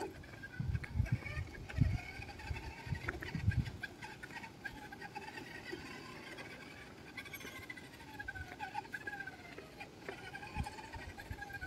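Electric motor of a radio-controlled model car whining as it drives, its pitch rising and falling smoothly as the throttle changes.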